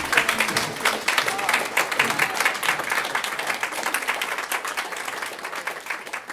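Audience applauding, with voices mixed in near the start; the clapping gradually dies down toward the end.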